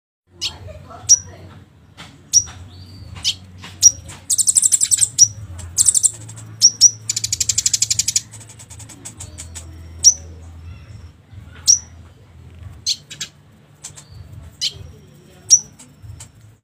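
Konin (kolibri ninja sunbird) song used as a lure: sharp high chips about once a second, broken by two fast buzzing trills a few seconds in, over a faint low hum.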